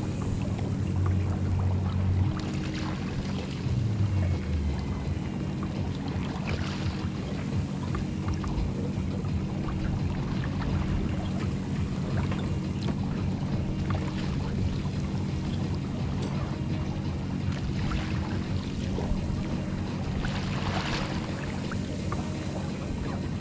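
Water rushing and splashing along the hull of a Finn dinghy under sail, over a low rumble of wind on the boat-mounted microphone. A few louder splashes come as waves hit the hull, the strongest about 21 seconds in.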